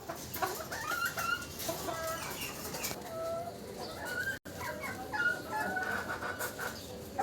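Several chickens clucking and calling, many short overlapping cries, with the sound dropping out for an instant about four and a half seconds in.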